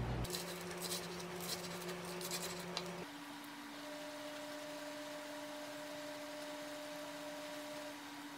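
Roasted seaweed sheets (gim) being cut, a quick run of crisp snips for about the first three seconds. The snips then stop, leaving only a steady low room hum.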